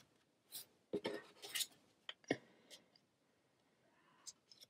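Plastic card being pushed into a nearly full Apple MagSafe leather wallet: faint scrapes and clicks of card edges against leather and the other cards. There is a short cluster of scrapes about a second in, a few ticks a little later, and two faint ticks near the end.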